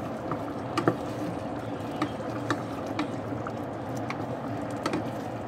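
A wooden spoon stirring thick rice porridge in a stainless steel pot, knocking and scraping against the metal in irregular sharp clicks about once or twice a second, over a steady background hiss.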